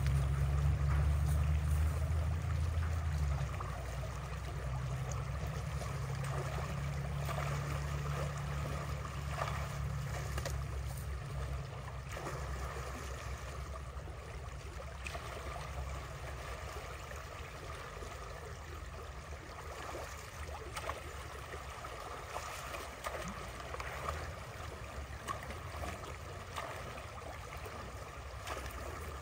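Creek water rushing and gurgling through a breached beaver dam, a steady flow, over a low rumble that is strongest for the first three seconds or so and then eases.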